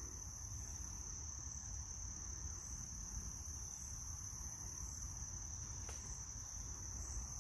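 Steady high-pitched chorus of crickets trilling, over a low background rumble.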